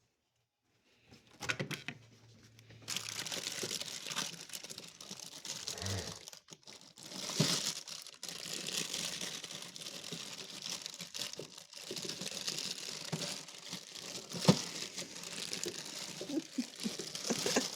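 Rummaging in a freezer: plastic packaging crinkling and rustling without a break, with occasional knocks as frozen items are moved to get at a cup of ice cream.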